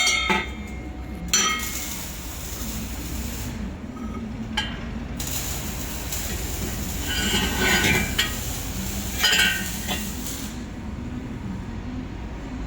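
Steady hum of an air-cooled handheld laser welder running, with a few short metallic clinks and rasps scattered through it.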